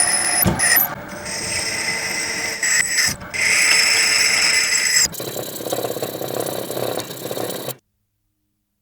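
Workshop tools working on the blade: a run of short, hard-cut clips of scraping and rubbing with a high whine. The sound cuts to silence about three-quarters of the way through.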